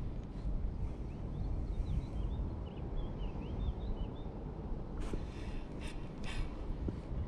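Wind rumbling on the microphone, with small birds chirping a quick series of short calls about two to four seconds in. Two short hissy noises come about five and six seconds in.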